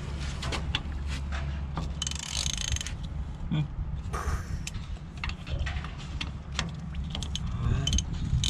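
Mechanism of a REO 6x6 wrecker truck working, heard just after its hydraulic oil tank has been refitted: a steady low drone with scattered metallic clicks and clanks, and a brief hiss about two seconds in.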